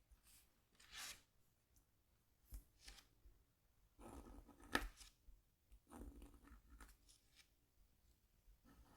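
Faint, separate scratching strokes of a scratch tool scraping the coating off a scratchboard, with the longest and loudest strokes about four to five seconds in.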